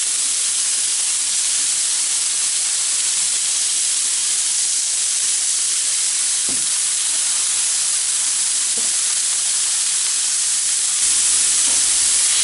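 Ground-beef burger patties sizzling steadily on a Blackstone electric griddle heated to about 500 degrees. The sizzle swells about a second before the end as a spatula presses down on a patty.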